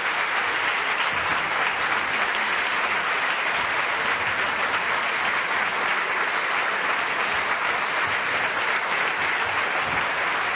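Steady, unbroken applause from a chamber full of standing deputies clapping.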